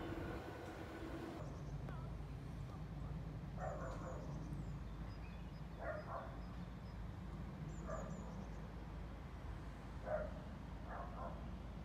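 A dog barking faintly, single short barks about every two seconds, over a low steady rumble, with a few faint bird chirps.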